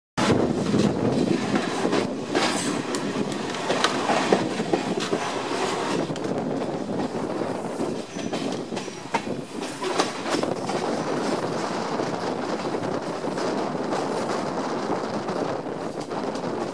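Sri Lanka Railways Class S11 diesel multiple unit running over curving track and pointwork, heard from the open side of the train: a steady rolling rumble broken by irregular clicks and knocks of the wheels over rail joints and points.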